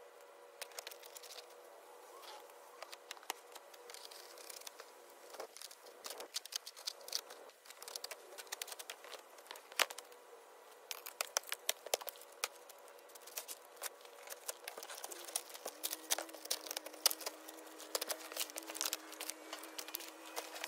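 Cardboard packaging being pulled apart: crinkling, tearing and scattered sharp clicks and snaps.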